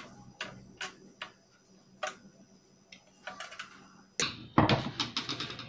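A screwdriver clicking sharply on the screws of a diaphragm pump's metal head cover in a GOMCO 3060 suction machine as the head is fastened back on, a handful of separate ticks. About four seconds in comes a louder run of rapid clicks and clatter.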